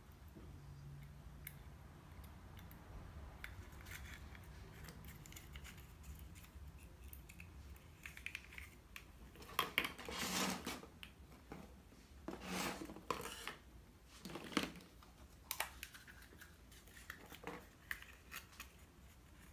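Hollow plastic Easter eggs being handled and laid out on a table: scattered light clicks and knocks of plastic, with a few louder scraping, rustling bursts around the middle.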